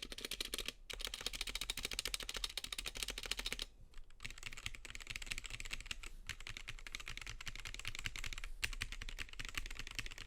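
Fast typing on a Gamakay K77 mechanical keyboard with linear Gateron Black switches and ABS doubleshot keycaps: a dense, continuous stream of key clacks, broken by short pauses just before a second in and around four seconds in.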